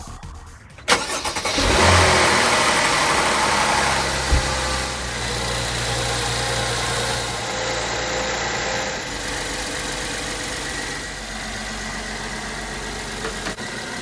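Mercedes-Benz E350's 3.5-litre V6 starting about a second in, flaring up briefly and then settling to a steady idle, with a newly replaced serpentine-belt tensioner pulley fitted.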